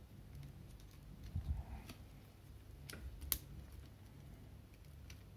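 Hard plastic parts of a Transformers action figure clicking and knocking as the figure is handled. There is a soft knock, then a few sharp clicks, the loudest a little past the middle.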